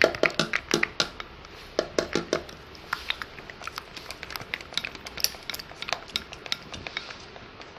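Irregular sharp clicks and taps from handling a nearly empty container of moisturising cream, working the last of it out into the slime mixture.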